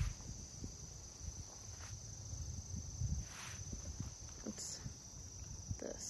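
Insect chorus, a steady high-pitched drone, under a low rumble, with a few soft footsteps and rustles through woodland undergrowth.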